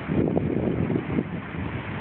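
Wind buffeting the microphone in gusts: a low, irregular rumbling flutter that comes in suddenly at the start, over a steady background hiss.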